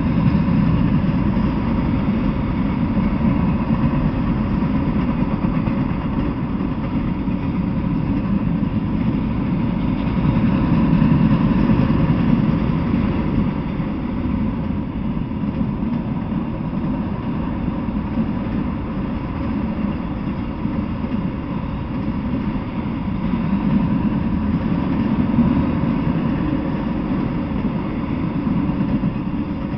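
Freight train of autorack cars rolling past, a steady low rumble of steel wheels on the rails that swells a little now and then, with a faint steady tone running through it.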